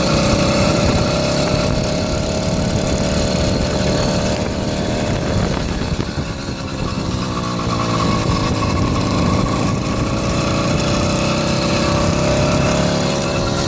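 80cc two-stroke bicycle engine running while riding. Its pitch drops about six seconds in and climbs back up over the next few seconds. The owner says it doesn't sound right, lacks its power band, and is running extremely rich.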